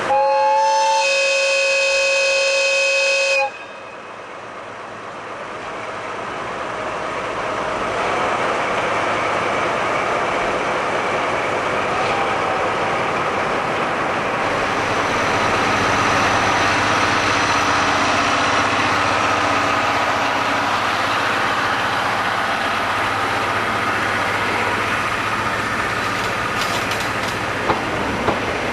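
A DE10 diesel locomotive sounds a long two-tone horn for about three and a half seconds as its departure signal. The horn stops abruptly, and the engine works as the train pulls away, growing louder over several seconds and then running steadily as the coaches roll past.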